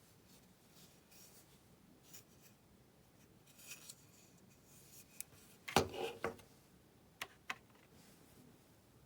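Light handling sounds: soft rubbing and scraping, a short clatter of knocks about six seconds in, then two sharp clicks.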